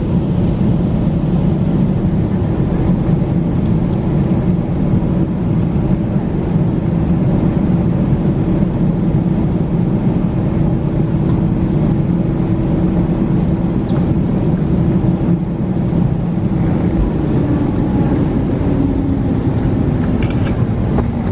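Steady low rumble of an Airbus A321 airliner heard from inside the passenger cabin, its engines running with air and rolling noise, with a faint steady hum through it.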